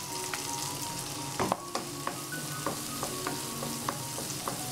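Diced capsicum, onion and garlic sizzling in hot sunflower oil in a nonstick wok on high flame, stirred with a wooden spatula. Scattered sharp clicks and scrapes of the spatula against the pan over a steady frying hiss.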